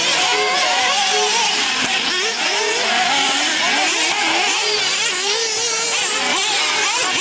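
Several nitro RC buggy engines running at high revs at once, their whining pitches rising and falling over one another as the cars accelerate and back off around the track.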